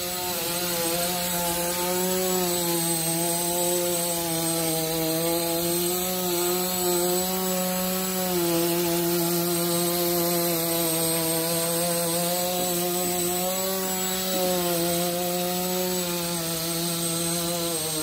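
An air-pressure-driven (pneumatic) motor on a barn gate mechanism running continuously, giving a steady pitched drone that wavers slightly in pitch, with a thin high whine above it.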